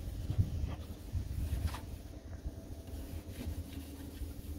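Wet sandpaper (2000 grit) rubbing by hand over a plastic headlight lens, faint scratchy strokes under a steady low rumble.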